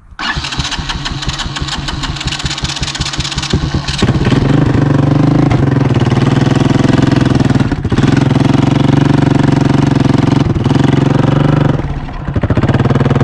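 Honda ATC 200ES three-wheeler's single-cylinder four-stroke engine running just after starting. It picks up and runs louder about four seconds in, with a few brief stumbles. The owner suspects a varnished-up carburettor.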